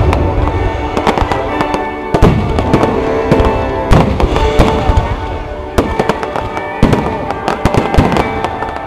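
Aerial fireworks bursting in rapid succession: a dense series of bangs and crackles, with heavier booms about every second or two. Music plays underneath.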